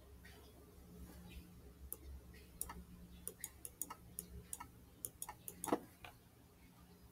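Faint irregular clicking, about a dozen sharp clicks and taps between about two and six seconds in, from the pointing device being used to draw on the screen, over a low steady hum.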